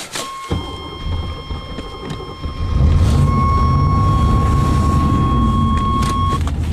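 A cold car engine starts and runs, getting much louder about two and a half seconds in, its pitch rising and falling as it revs unevenly. A steady high electronic warning tone from the car sounds alongside until shortly before the end.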